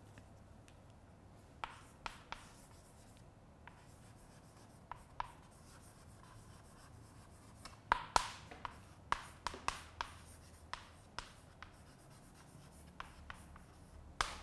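Chalk writing on a blackboard: a run of short taps and scratchy strokes as letters are written, busiest about eight seconds in.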